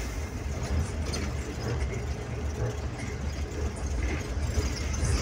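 A bus's diesel engine running steadily at cruising speed, with road and tyre noise, heard inside the cabin as a low, even rumble.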